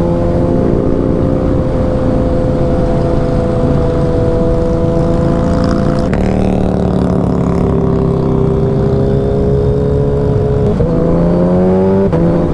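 Motorcycle engine and exhaust running at highway speed over wind rush; the engine note changes abruptly about halfway through, sags, then climbs in pitch near the end before breaking off again as it shifts.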